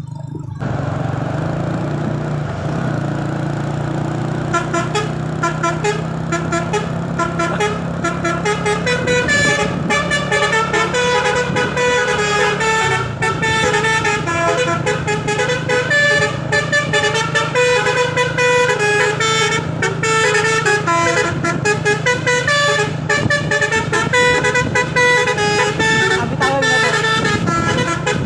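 Telolet Basuri V3 musical horn on a UD Trucks Quester, playing a fast melody of quickly changing notes over a steady low hum. The melody starts about four seconds in.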